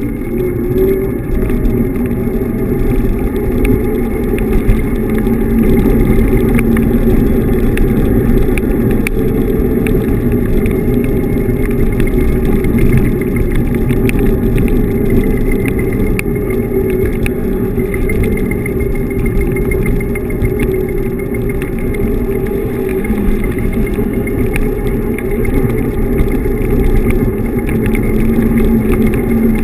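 Steady rumble and wind buffeting from riding a Xiaomi M365 Pro electric scooter over pavement, the tyre and deck rumble and wind on the microphone running loud and even throughout.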